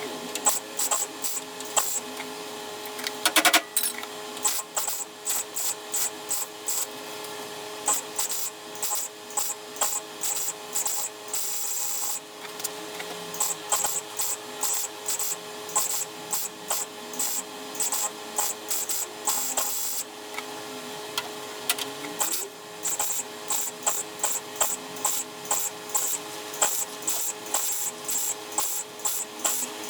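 MIG welder laying plug or stitch welds on steel car body panels, crackling in many short on-off bursts with pauses between runs. A running generator hums steadily underneath, its pitch shifting now and then under the welding load.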